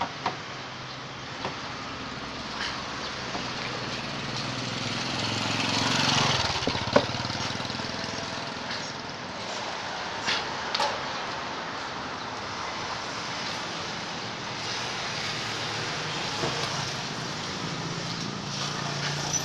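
Street traffic: a motor vehicle passing, loudest about six seconds in, with a steady hum of traffic and a few short sharp clicks.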